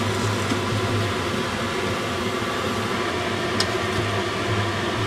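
Steady fan-like machine whirr with a low hum, and one light click about three and a half seconds in.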